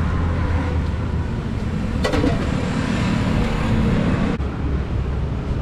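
Steady low rumble of road traffic passing by, with a short ringing clink about two seconds in.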